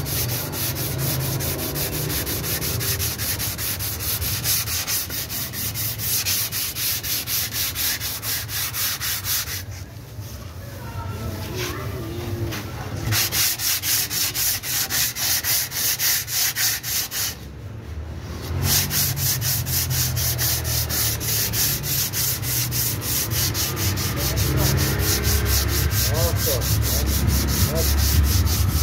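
Sandpaper rubbed by hand over dried body filler on a car door panel, dry sanding in rapid, even back-and-forth strokes. There is a pause of a few seconds about a third of the way through, and a shorter one past the middle.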